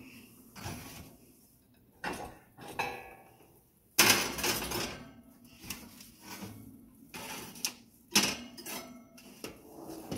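Bakeware clattering on a metal oven rack: a foil loaf pan and a ceramic baking dish being set down and slid into place, a run of separate clatters and scrapes, the loudest about four seconds in and another about eight seconds in.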